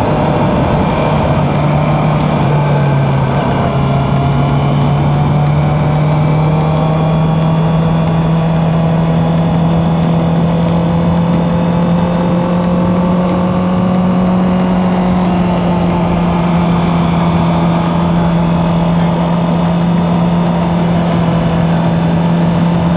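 Honda CB650F inline-four engine running at steady cruising speed, its pitch creeping slowly higher, with wind rushing past.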